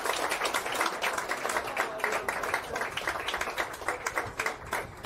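Scattered hand clapping and applause from spectators, greeting a goal; the claps come fast and are heard one by one.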